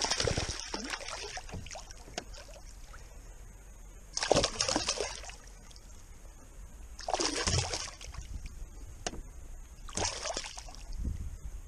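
A hooked largemouth bass thrashing at the water's surface beside the canoe, in four separate bursts of splashing.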